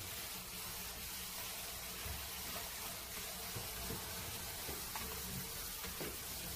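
Kitchen tap water running steadily into a plastic colander of blanched rock tripe mushrooms as they are rinsed in cold water.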